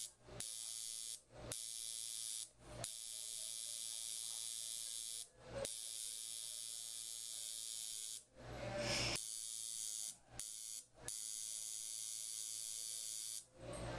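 Permanent makeup machine running as its needle puts eyeliner ink into the upper lash line: a steady high-pitched electric buzz that stops briefly about eight times as the pen is lifted and restarted. There is a short, louder noise about nine seconds in.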